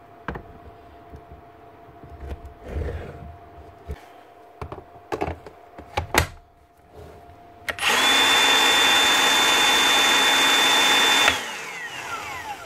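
Milwaukee cordless magnetic drill's newly fitted motor run free for about three and a half seconds with a steady high whine, then switched off and spinning down with a falling pitch: a test showing the replacement motor works. Before it, a few clicks and knocks as the drill is handled on its base.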